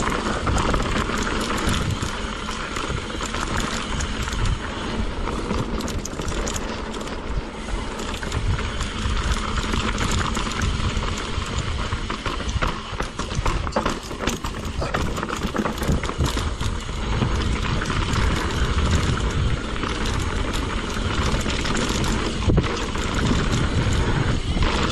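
Mountain bike riding down a rough dirt trail: continuous tyre and wind noise, with the chain and frame rattling and knocking over bumps.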